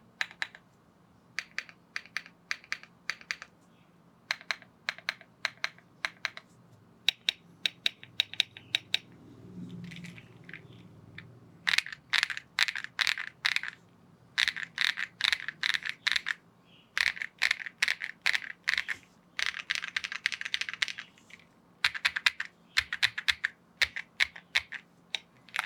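Keystrokes on a Rainy75 mechanical keyboard fitted with AKKO V3 Cream Yellow linear switches, pressed in quick runs of clicks with short pauses between; the stabilized keys are being tested.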